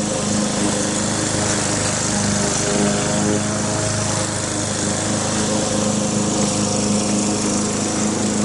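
Geothermal well-drilling rig running steadily under power, its engine giving an even hum with a wide hiss over it.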